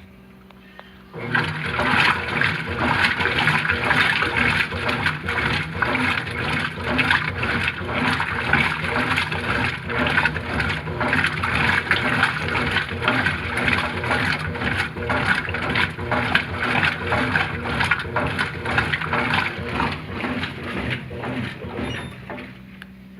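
Brastemp Ative 11 kg top-loading washing machine agitating, churning water and clothes in the tub with a dense, continuous sloshing. It starts about a second in and stops shortly before the end.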